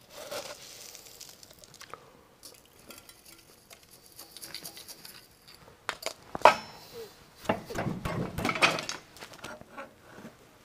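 Glass jar of plastic pellets clinking while the pellets rattle out into a benchtop injection molder. A sharp clink comes about six seconds in, and a burst of rattling follows around eight seconds.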